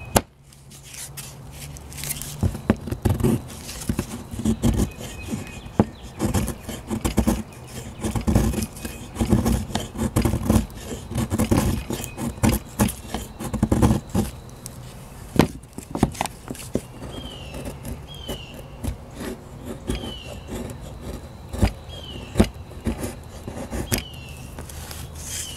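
A Real Steel knife blade scraping along a fatwood stick, resin-rich pine, shaving off curls in quick, irregular strokes, with a few sharper knocks of the wood and blade.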